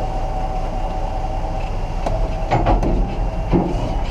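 Massey Ferguson 6270 tractor engine running steadily behind a tipping grain trailer, with a few clunks and knocks from the trailer from about two and a half seconds in as the wet, sticky crimped grain slides out.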